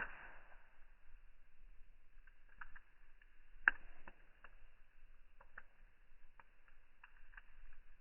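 Fire crackling in slow motion with its own slowed-down sound: scattered short pops and snaps, with a sharp crack right at the start and another loud pop a little past halfway.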